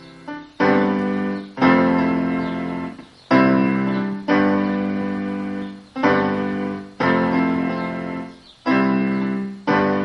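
Piano playing slow block chords, struck in pairs about a second apart, each chord left to ring and fade before the next.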